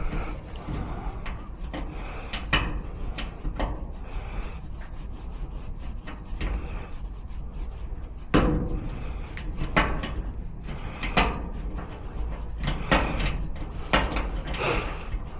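Hand scraping and rubbing strokes at an uneven pace, as a small handle is being shaped by hand, with several louder strokes in the second half. A steady low rumble runs underneath.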